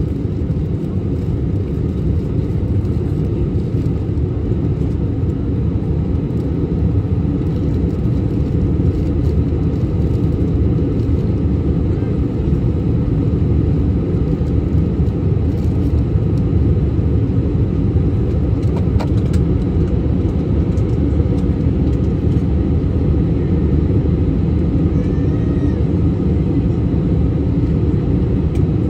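Steady low rumble of airliner cabin noise, engines and airflow, heard from inside the cabin during the descent toward landing.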